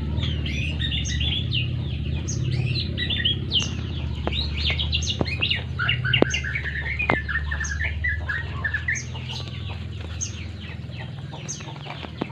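White-rumped shama nestlings chirping rapidly and continuously, many short calls overlapping. A steady low hum runs underneath, and a few sharp clicks come around the middle.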